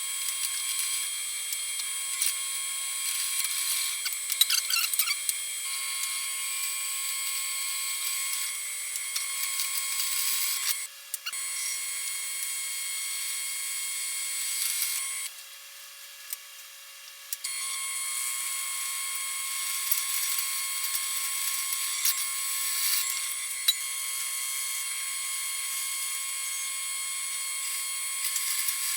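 Drill press running and drilling holes through 1/4-inch steel bar, a steady high whine with some scraping from the bit. It drops off briefly about eleven seconds in and again for about two seconds around the middle.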